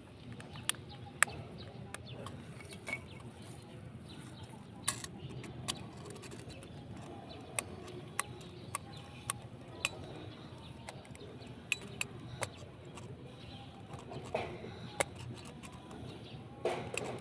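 Irregular sharp clicks and taps from a doorbell push-button switch being handled and cleaned of ants, over a low steady hum.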